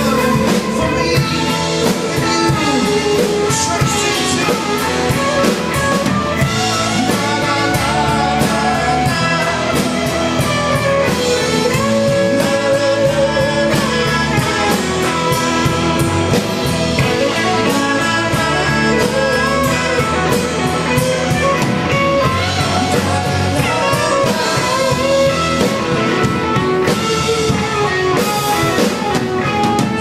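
Live rock band playing an instrumental break of a blues-rock song: electric guitars over a drum kit, with a lead line that bends and wavers.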